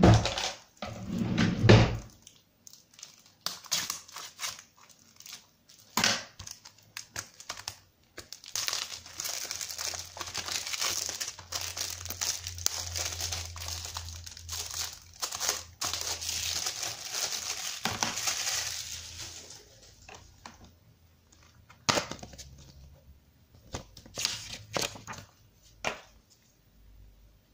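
Plastic wrapping being torn and crinkled off a Blu-ray keep case, in a long stretch of steady crackling. It is followed by a few sharp plastic clicks and knocks as the case is handled and opened.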